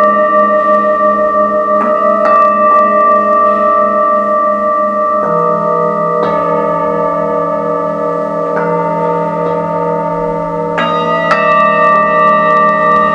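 Singing bowls struck one after another, several at a time ringing on and overlapping, their tones wavering in a slow pulse. A fresh bowl is struck every one to three seconds, each adding a new note to the sustained chord.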